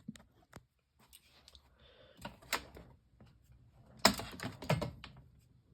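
Scattered clicks and knocks of a box fan being handled and turned around, with a louder clatter about four seconds in.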